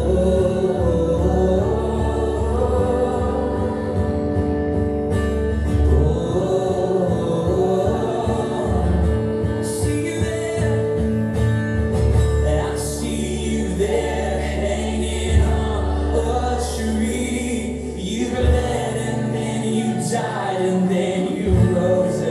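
Church worship music: sustained instruments with a continuous bass under voices singing.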